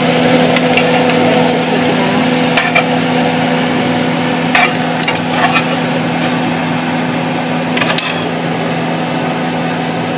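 Pork slices sizzling as they fry in a pan, with a few sharp clicks of a utensil against the pan, over a steady hum.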